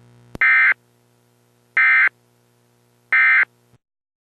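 Emergency Alert System end-of-message signal: three short bursts of the SAME digital data tone (the "NNNN" code), each a fraction of a second long and about 1.3 s apart, with a click just before the first. They mark the end of the alert broadcast.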